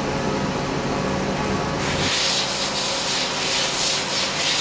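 Slant-bed CNC lathe machinery running: a steady hum with a low drone, which about two seconds in gives way to a rushing hiss that pulses unevenly.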